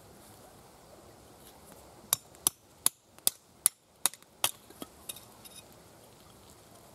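A quick series of about seven sharp knocks, two or three a second, then a few fainter ones, from working the firewood while laying a campfire.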